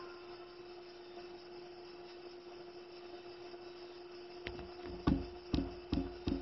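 A steady low hum, then from about four and a half seconds in a series of sharp knocks that come faster toward the end.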